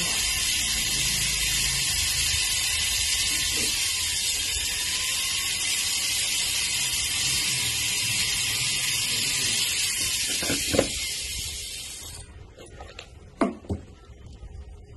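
Handheld power engraving pen running with a loud, steady hiss as its point cuts into a round metal disc, stopping suddenly about twelve seconds in. A few sharp knocks follow near the end.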